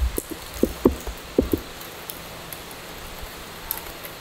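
Steady rain falling, with a few soft low thumps in the first second and a half.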